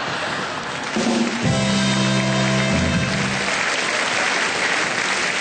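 Audience laughing and applauding a punchline, with a short held brass-band chord, a carnival 'Tusch', sounding from about one second in until about three and a half seconds.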